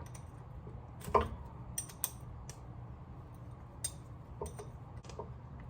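A handful of scattered light metal clicks and taps, as of hand tools and brake parts being handled, the loudest about a second in, over a faint low steady hum.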